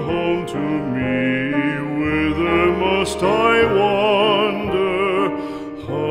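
A classical art song: a solo singer with wide vibrato, accompanied by piano.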